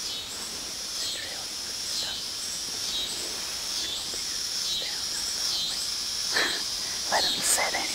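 Cicadas buzzing in a steady pulsing chorus, a little more than one high-pitched pulse a second. A brief whisper comes near the end.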